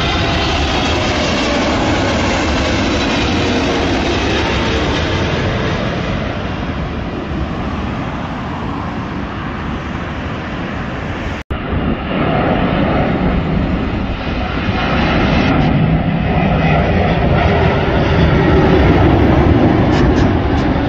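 Boeing 777-300 jetliner on final approach passing overhead, its engines giving a steady jet noise with a falling whine as it goes by, then easing as it moves off toward the runway. After a sudden cut about halfway through, a Boeing 777-200ER on approach, its engine rumble building to its loudest near the end.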